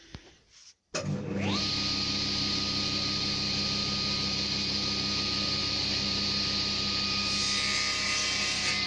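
Table saw motor and blade starting up with a rising whine, then running steadily. Near the end the sound brightens as a strip of tulipwood is fed along the fence toward the blade to be ripped.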